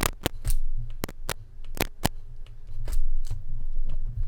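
Crackling pops and clicks from the Sennheiser MKE200's supplied connector cable, about ten sharp irregular clicks over a steady low hum, the sign of a bad connection in the cable.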